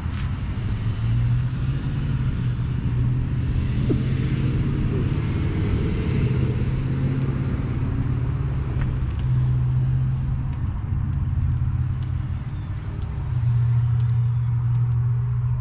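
An engine running steadily at idle, a low, even hum that swells slightly a few times.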